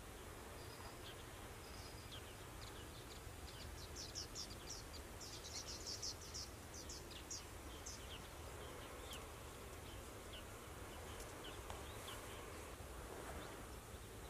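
Faint dawn countryside ambience: small birds chirping in quick series of high notes, busiest about four to seven seconds in. A faint insect trill pulses in the first couple of seconds.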